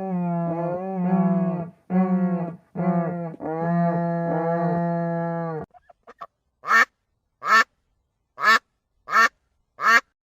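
Farm animal calls: four long, drawn-out pitched calls, then a duck quacking five times, about one quack a second.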